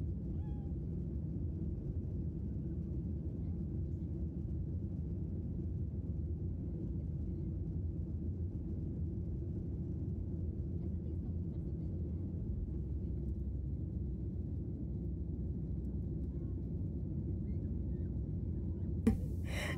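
Steady low rumble of jet airliner cabin noise, from the engines and airflow, heard from a seat inside the cabin. Near the end a much louder voice cuts in.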